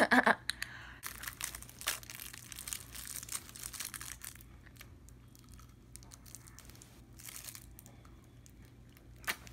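Plastic wrapper of a candy cane crinkling and tearing as it is unwrapped. There is a dense run of rustles in the first half, sparser ones after, and one louder rustle near the end.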